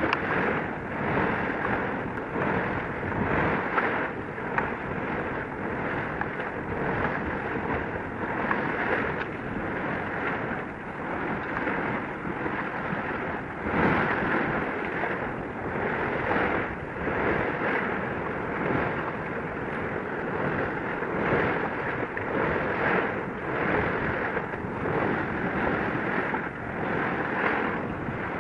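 Wind rushing over the microphone together with the wash of choppy sea waves, a steady noise that swells and eases every second or so.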